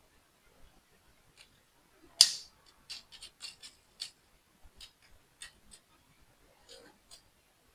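Small plastic toy-model parts being handled and fitted together. There is one sharp snap about two seconds in, followed by a scatter of lighter clicks and taps.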